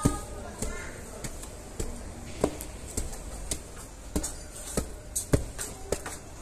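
Footsteps of someone in sneakers climbing concrete steps, a short sharp step sound about every 0.6 seconds.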